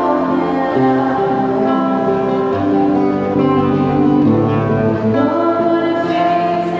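A woman singing a slow song in long held notes, accompanied by acoustic guitar.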